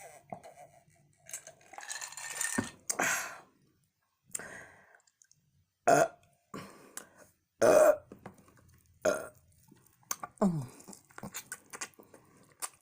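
A person burping loudly several times in a row while eating, with a few short, quieter sounds between the burps. The last burp slides down in pitch.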